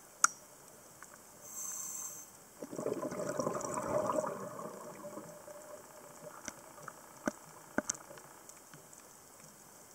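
A scuba diver breathing through a regulator, heard underwater: a short high inhale, then a few seconds of bubbling exhaust that fades away. A sharp click comes right at the start, and a few fainter clicks come later.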